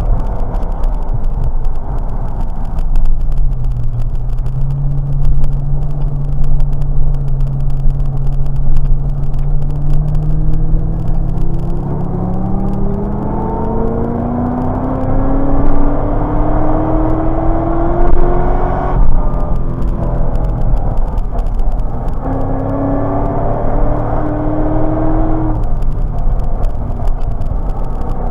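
Chevrolet Corvette C6's V8 engine heard from inside the car at track speed, over road and wind noise. Its pitch falls at first and holds steady for a few seconds. It then climbs for about eight seconds under acceleration before a sudden gear change, pulls up again and shifts once more near the end.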